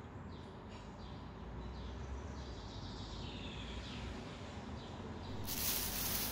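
Faint high chirps over a quiet background, then about five seconds in a loud, steady rustling of clear plastic wrapping being handled around a shawl.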